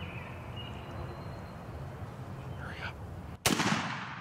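A single turkey-hunting shotgun blast about three and a half seconds in, dying away in a rolling echo over the next second. It is the shot that drops a strutting wild turkey gobbler.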